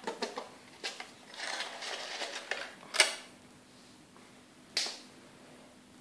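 Yellow-bellied sliders splashing and knocking at the surface of their aquarium: a run of sharp taps and a short burst of splashing, the loudest tap about three seconds in and another near five seconds. A faint steady hum runs underneath.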